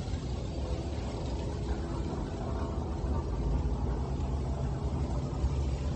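A steady low drone with several held low tones and no sharp events.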